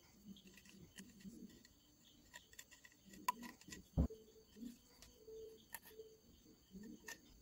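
Faint handling noises: scattered small clicks and rubs as a hand-held tube is turned over in the hands, with one louder knock about four seconds in.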